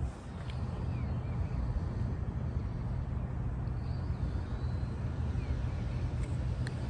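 Outdoor background: a steady low rumble, like distant traffic or wind on the microphone, with a few faint high chirps.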